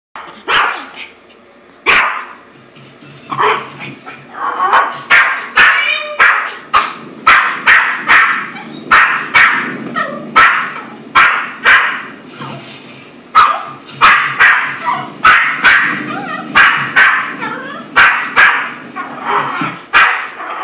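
Yorkshire terrier barking at a cat on the television: sharp yaps, a few spaced out at first, then about two a second for most of the stretch.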